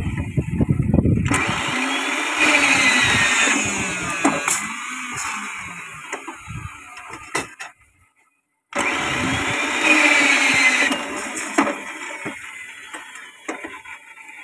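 Electric rebar bending machine running as its turntable bends steel reinforcing bar into stirrups, with a whine that rises and falls. There are two bending runs, and the sound cuts out abruptly for about a second between them.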